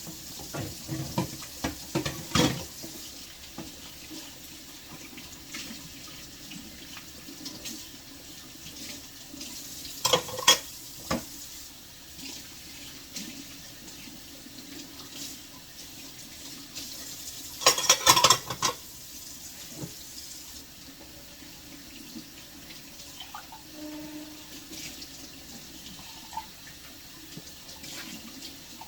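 Water running from a tap into a sink while dishes are washed, with three loud bouts of dishes clattering against each other spread through.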